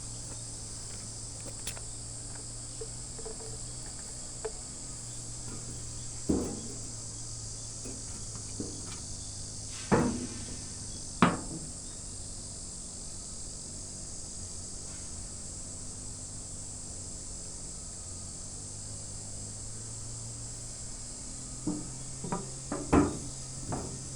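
Steady, high-pitched chirring of insects under a low steady hum, broken by a few sharp knocks: a pair about a second apart near the middle are the loudest, and a quick cluster follows near the end.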